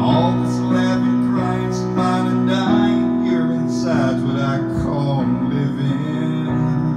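Electronic keyboard playing sustained chords in an instrumental passage of a song, the chords changing about once a second.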